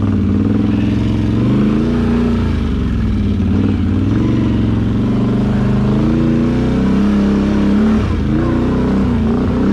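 ATV engine running under throttle on a muddy trail, its pitch rising and falling repeatedly as the rider works the throttle.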